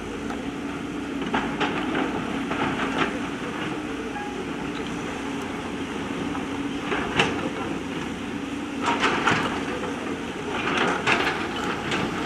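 Backhoe loader's diesel engine running steadily, with scattered knocks and clatter from the bucket working stones, several in a cluster about 9 seconds in.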